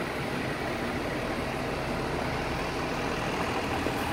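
An MTA New York City transit bus running steadily as it moves past close by, its engine a steady low hum under street noise.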